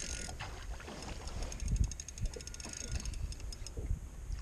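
Fly reel's click-and-pawl drag ratcheting in a quick run of clicks about halfway through, as a hooked trout takes line. Under it is a steady rumble of wind on the microphone and water against the boat.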